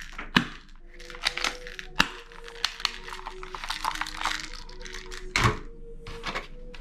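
Plastic toys and packaging being handled: a string of sharp clicks and knocks with some crinkling. Quiet background music plays underneath.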